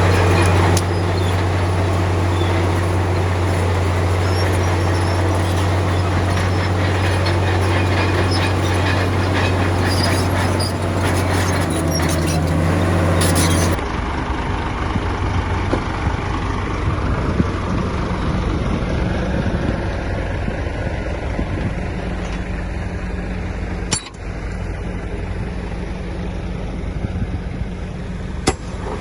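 Heavy diesel earthmoving machinery running: a steady, deep engine hum for about half the time, then an abrupt change to a rougher, noisier engine sound with rumbling.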